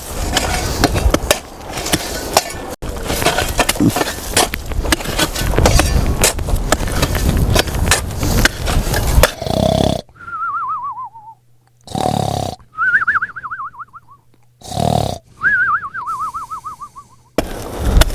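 A rough scraping, crunching noise with many knocks for about nine seconds. It gives way to a cartoon-style snore: a short rasping intake followed by a wavering whistle that falls in pitch on each out-breath, three whistles in all.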